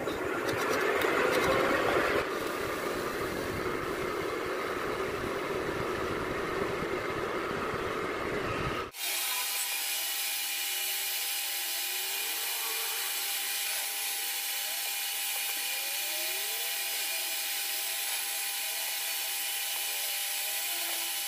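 Manual metal lathe running, its cutting tool turning a metal round bar with a steady scraping cut noise, loudest for the first couple of seconds. About nine seconds in the sound changes abruptly to a thinner one with a steady whine.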